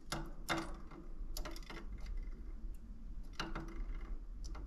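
A few sharp, irregular clicks and taps as a pet cockatiel pecks and knocks its plastic ball toy on the cage floor.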